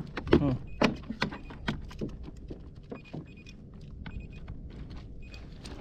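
Sharp clicks and light metallic rattles from handling fishing pliers and a coiled tool lanyard, loudest in the first two seconds, then fainter.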